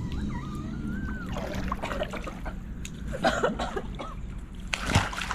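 Water splashing and sloshing in a swimming pool, with a sharper splash near the end.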